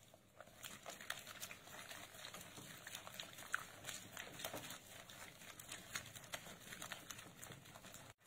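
Spatula stirring a soft, wet cookie dough of creamed butter, sugar and egg in a glass bowl: faint, irregular scraping, squelching and small clicks.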